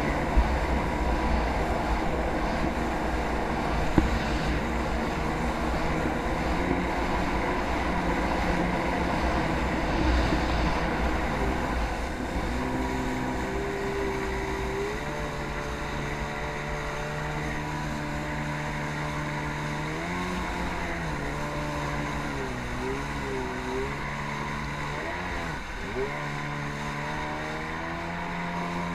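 Jet ski engine running under way, with rushing wind and water noise in the first half. About halfway through the engine note stands out clearly and holds steady, then dips and wavers as the throttle is eased and opened, and climbs again near the end.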